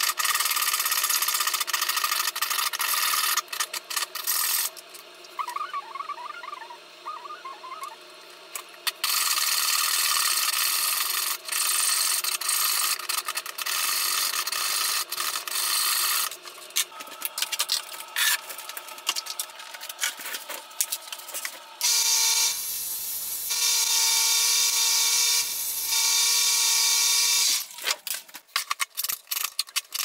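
A jeweller's saw cutting sterling silver sheet held against a wooden bench pin, a loud rasping hiss in several long spells broken by pauses. Near the end the steady cutting gives way to scattered light scrapes and clicks.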